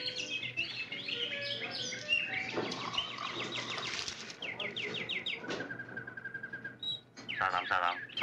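Caged songbirds chirping and trilling, many quick repeated notes from several birds overlapping.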